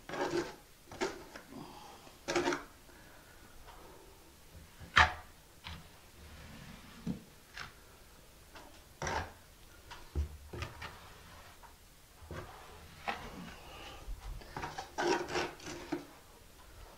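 1/4-inch square-notch trowel scraping thin-set mortar across a shower ceiling board, in short separate strokes with pauses between them.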